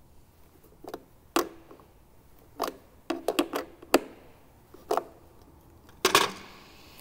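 Slip-joint pliers clicking and clinking against a battery terminal bolt as it is tightened: a string of short, separate metallic clicks, then a louder clatter about six seconds in as the pliers are put down.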